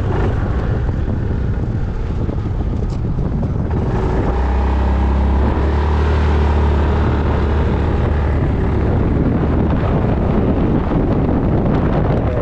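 Yamaha Majesty 400 scooter's single-cylinder engine running under way, with strong wind buffeting the microphone. The engine's note holds steady for a few seconds near the middle.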